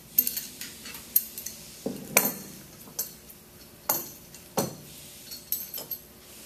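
Metal-on-metal clinks and taps as a hand tool works the alignment screw out of a stainless steel pump motor housing and the tool and screw are set down on the bench. It comes as a scattered series of sharp clinks, the loudest about two seconds in.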